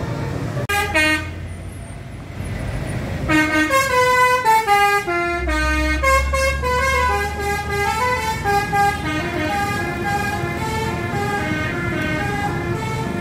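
Indonesian bus 'telolet' horn, a multi-tone musical air horn: a short blast, then a long run of quick stepped notes, falling at first and then playing a tune, over the low running of the bus.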